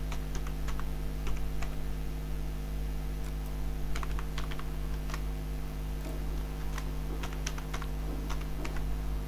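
Computer keyboard keys clicking as a password is typed, in short runs of keystrokes with pauses between. A steady low hum runs underneath.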